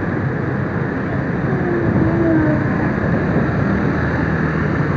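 Steady rushing noise of riding a motorbike in city traffic: the bike's engine and road noise mixed with wind on the microphone and the hum of surrounding scooters.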